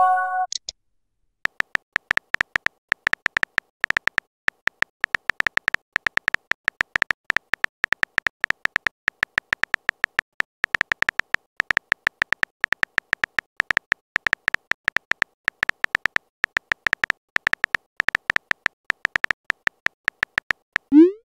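Rapid, uneven keyboard-tap clicks of a phone texting-app sound effect, several a second, as a message is typed out character by character. A short chime fades away at the start, and a rising swoosh near the end marks the message being sent.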